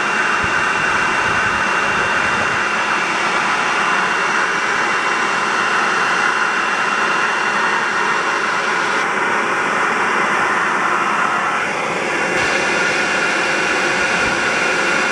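A steady, loud machine-like rushing noise with a constant high whine, unchanging throughout.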